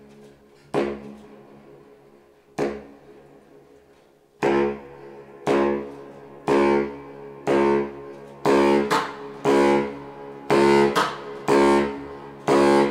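Solo baritone saxophone playing short, sharply attacked notes. Two stand alone early on; from about four seconds in they fall into a pulse of about one a second, which quickens to about two a second.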